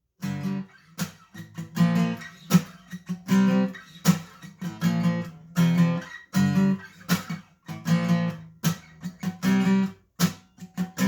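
Acoustic guitar strummed in a steady rhythm, ringing chords broken up by sharp, short strokes, playing a song's intro before the vocals come in.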